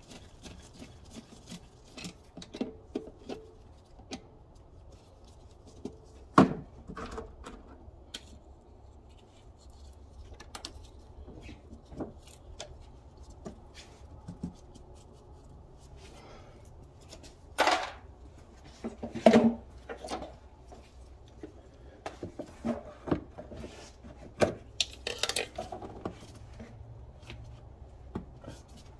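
Metal hand tools clinking, knocking and rubbing against engine parts in an engine bay while spark plugs are being taken out of a Nissan 3.5 V6. The sharpest knocks come about six seconds in and again around eighteen to nineteen seconds in.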